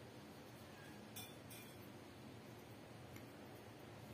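Near silence: faint steady room hum with a few light clicks from fingers handling a small part, about a second in and again just after three seconds.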